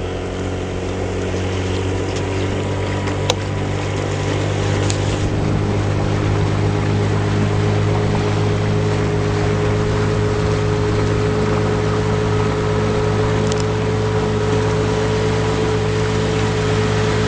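1974 Johnson 6 hp two-stroke outboard running steadily, pushing a small boat along under way at a constant speed. There is one sharp click about three seconds in.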